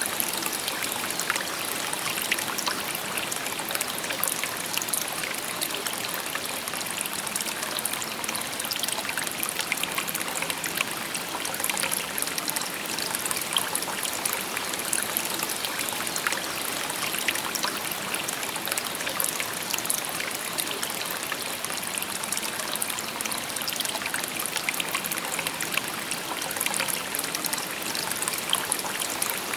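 A shallow river babbling over stones: steady rushing water with many small splashes and trickles, even throughout.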